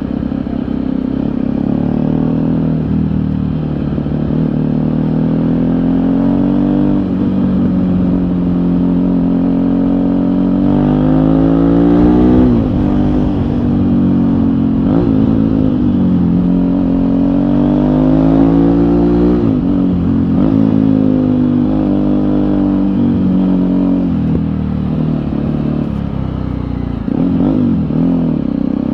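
Jawa 42 motorcycle's single-cylinder engine under way, its pitch climbing as it accelerates and dropping sharply at each gear change, several times over, with steady running in between.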